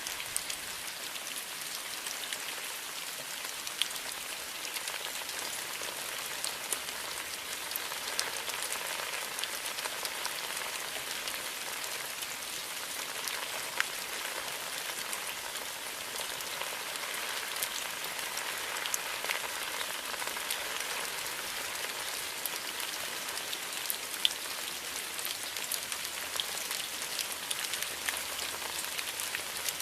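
Steady rain falling, an even hiss of many drops with scattered sharper individual drop ticks.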